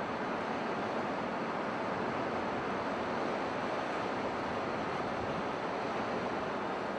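Steady rush of wind and road noise while riding in a moving vehicle, with no engine note standing out.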